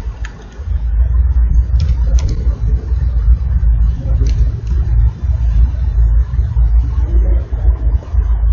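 Steady low rumble with a few scattered clicks, the clicks fitting computer keyboard keystrokes.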